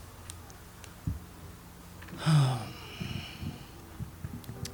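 A quiet pause between songs: a soft knock about a second in, then a short vocal sound falling in pitch about two seconds in, followed by faint low thumps and a few light clicks.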